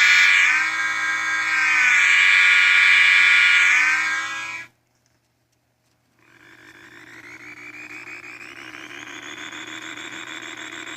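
A loud, sustained horn-like tone that dips in pitch twice, then cuts off suddenly. After a short silence a quieter whirring drone fades in and holds steady.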